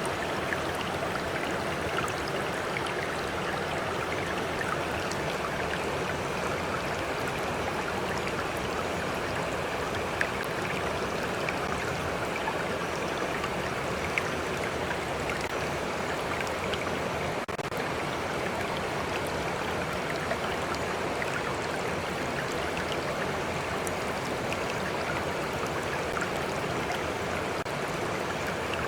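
Stream flowing: steady rushing water with faint scattered drips and splashes.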